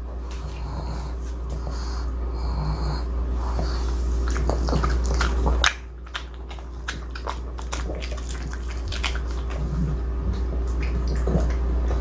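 A pug chewing and smacking on a sticky, chewy piece of sweet-potato and glutinous-rice-flour egg tart, with snuffling breaths; the quick wet clicks of chewing pick up about four seconds in. A steady low hum runs underneath.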